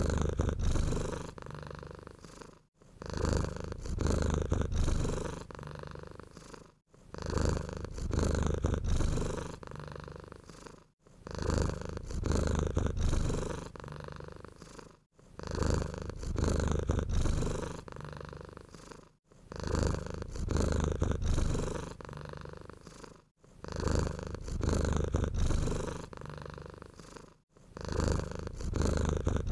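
Domestic cat purring close up, a low buzzing rumble. The same stretch of purring repeats about every four seconds, each cycle starting loud and fading, with a brief break between.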